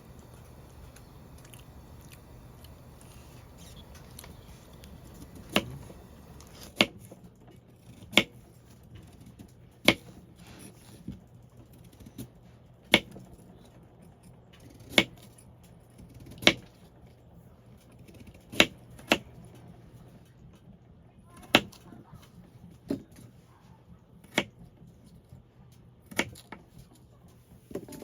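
Kitchen knife cutting down onto a cutting board, a sharp knock every second and a half or so, starting a few seconds in.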